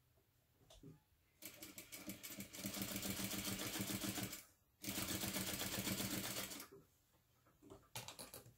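Sewing machine top-stitching a seam through layered cotton fabric, with rapid, even needle strokes. It starts about a second and a half in, stops briefly near the middle, and runs again for about two seconds before slowing. A few short bursts come near the end.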